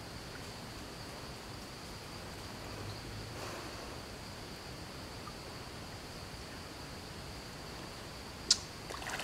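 Insects droning steadily at one high pitch, with faint rustling and a single sharp click near the end.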